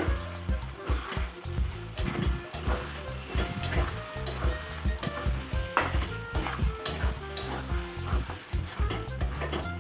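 Food sizzling as it fries in a pan, stirred with repeated scrapes and knocks of a utensil against the pan.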